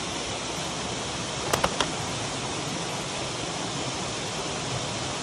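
Steady rushing of water pouring through a spillway. About a second and a half in, three sharp clicks come in quick succession.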